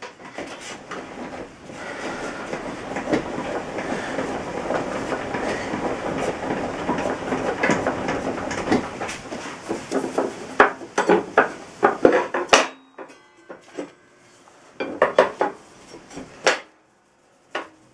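A homemade replacement throat plate scraping and rattling against a table saw's top as it is slid and worked into the blade opening. About ten seconds in, the scraping gives way to separate sharp clacks and knocks with short pauses as the plate is tapped and seated.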